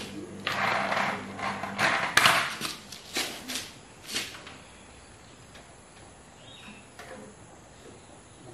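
Sandals scuffing on a concrete floor and a few sharp knocks and clicks as wires are handled, in roughly the first half, then quiet workshop room tone.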